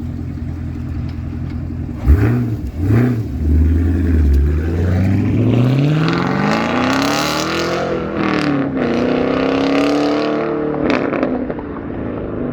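An engine idling, then blipped twice before being revved up gradually to a high pitch. It dips, holds high again, and drops back toward idle near the end.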